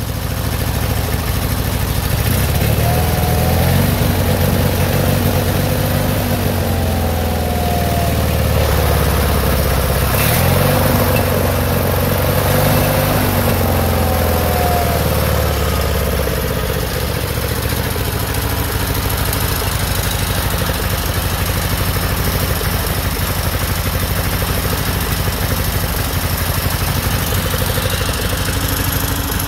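Onan B43G air-cooled opposed two-cylinder engine running, its speed rising and falling a few times in the first half, then holding steady at idle.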